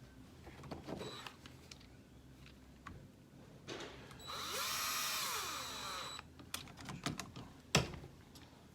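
Small cordless power screwdriver running for about two seconds, its motor speeding up and then winding down as it drives a small screw. Light clicks and taps of small parts and tools being handled come before and after it.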